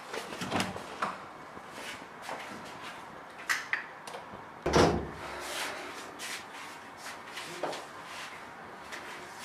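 An interior door pushed shut, landing with a thud about halfway through, among a few lighter knocks and clicks.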